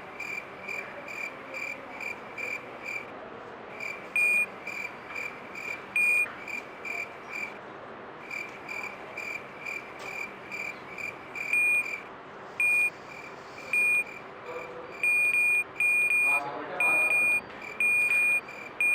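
Electronic alarm buzzer beeping at one high pitch, about two and a half short beeps a second, with a louder beep now and then. About three-quarters of the way in it changes to a string of louder, longer beeps.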